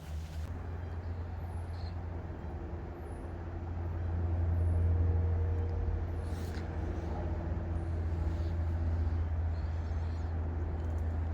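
Aeroplane passing overhead: a steady low rumble that swells to its loudest about halfway through and then slowly eases.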